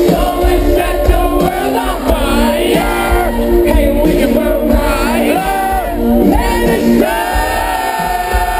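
Loud live band music played over a PA, with a lead vocal melody, sustained chords and a bass pulse, while the crowd shouts and sings along.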